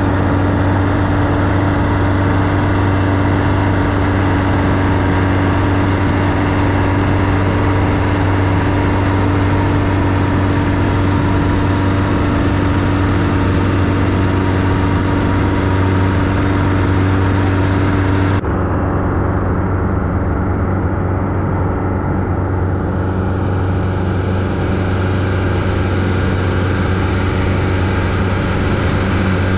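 Boat engine running steadily at cruising speed, a constant low drone under a rushing hiss. About two-thirds of the way through, the hiss drops away abruptly and slowly comes back while the engine drone goes on.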